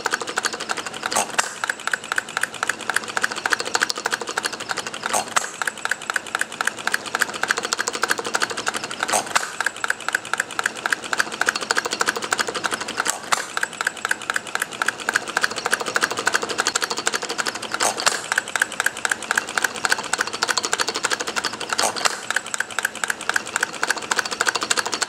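Miniature 2.22 cu. in. bar-stock hit-and-miss engine running: its mechanism clicks in a fast, even clatter. A louder stroke comes about every four seconds, when it fires after coasting on its flywheels.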